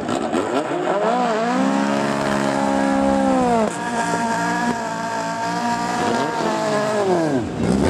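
A drag-racing VW Beetle's engine revved up and held at high revs while its rear tyres spin in a smoky burnout, with a short dip in the revs partway through and the revs falling away near the end.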